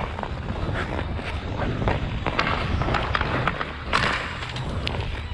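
Hockey skate blades striding and scraping on outdoor rink ice, a scrape with each stroke, over a low rumble of wind on the microphone. A louder scrape comes about four seconds in.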